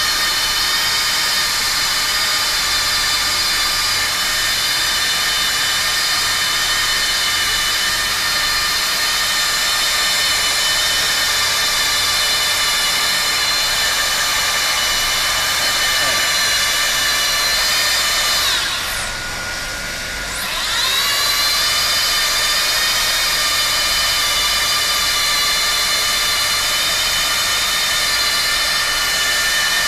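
Hand-held hot-air plastic welder running steadily, its blower motor giving a high whine with several steady tones. A little past halfway through, the whine sags in pitch and loudness, then climbs back up to speed about two seconds later.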